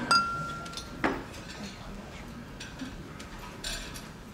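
Tableware clinking: one sharp clink that rings briefly, then a second knock about a second later and a few faint ticks, over a quiet murmur of people in the room.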